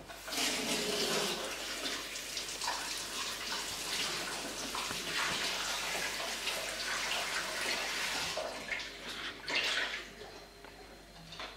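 Kitchen tap running into a sink as eggs are rinsed under it. The water comes on just after the start and is shut off near the end, with a short last gush before it stops.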